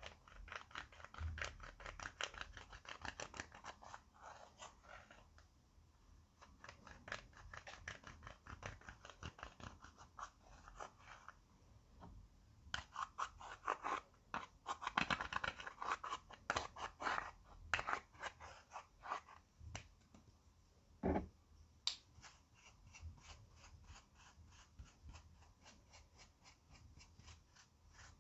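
Pressed makeup highlighter powder being scraped and crumbled out of its palette pans with a thin tool: a fast run of short, dry scratching strokes, with one sharper knock about three-quarters of the way through.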